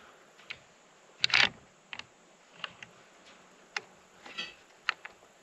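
Mossberg Patriot bolt-action rifle being handled to clear a misfeed of Remington Core-Lokt ammo: a string of separate sharp metallic clicks and clacks, with one louder clack and a brief rattle about a second and a half in.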